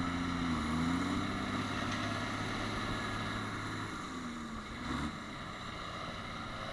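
Diesel tractor engines working hard under load as a John Deere tractor stuck in mud is pulled out by a second tractor. The engine pitch sags briefly about half a second in and picks up again, then shifts and wavers once more around four to five seconds in.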